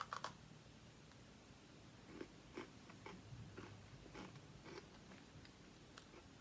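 A person biting into and chewing a crunchy chocolate Oreo sandwich cookie: a couple of sharp crunches right at the start, then faint, scattered chewing crunches.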